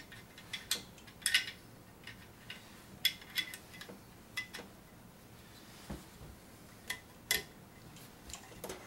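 Steel parts of a Marlin 1895 lever-action rifle, the carrier being worked into the receiver, giving scattered light metallic clicks and clinks, about a dozen, some with a brief ring.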